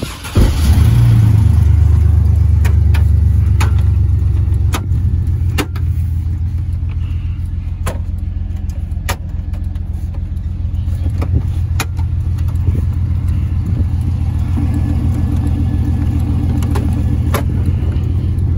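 Pickup truck engine starting, catching just after the start and settling into a steady, low idle, heard from inside the cab. A few sharp clicks sound over it.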